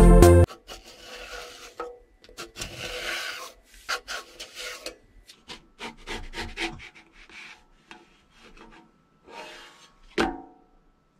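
A spatula scraping and rubbing across a flat griddle in a series of short, irregular strokes as it is worked under a pancake. About ten seconds in, one louder slap as the pancake is flipped over.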